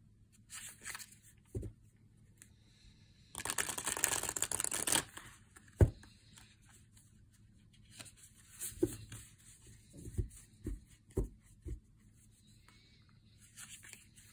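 A deck of stiff, sturdy-cardstock oracle cards being shuffled by hand: a rushing rustle of cards for about a second and a half, then a sharp knock, followed by several softer knocks and slides of cards.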